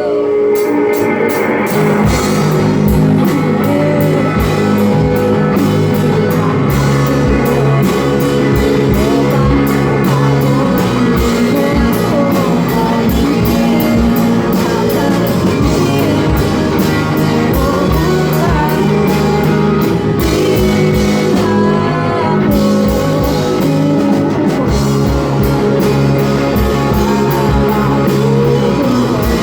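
A band playing a rock song live, with guitar, drum kit and singing.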